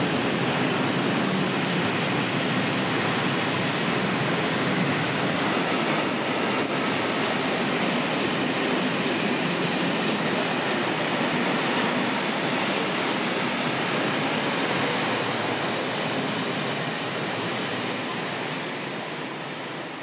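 Freight train of loaded open coal wagons rolling past close by, a steady noise of wheels on rails that fades away near the end as the last wagons go by.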